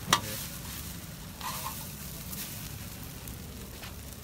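Hash browns sizzling steadily in the hot pan of a propane gas cooker, with a sharp clack just after the start and a few shorter scraping strokes as they are stirred.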